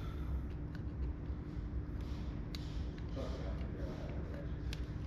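A few sharp metal clicks and ticks as the screws of a Harley-Davidson Dyna's primary derby cover are started by hand, over a steady low hum.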